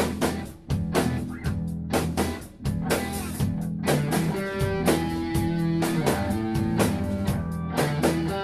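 Rock music without vocals: electric guitar over bass and a drum kit keeping a steady beat, with long held guitar notes coming in about halfway through.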